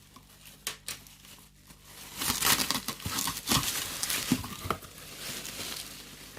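Packaging being handled during an unboxing: irregular crinkling and rustling of wrapping with scattered crackles and clicks, busiest from about two seconds in.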